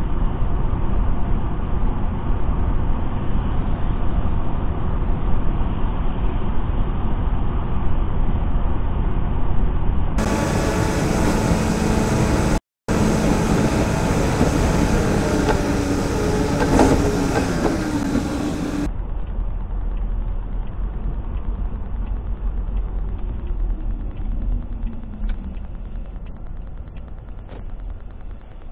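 Steady road and engine noise inside a car driving on a highway, picked up by a dashcam microphone. About ten seconds in, the sound turns fuller for several seconds, with engine tones, one falling in pitch, and a split-second dropout. Toward the end the noise fades gradually as the car slows.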